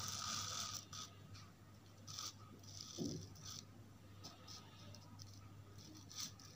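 Faint rustling and scraping as a paper sheet is handled and shifted, a few soft brushes spread over the seconds, over a low steady hum.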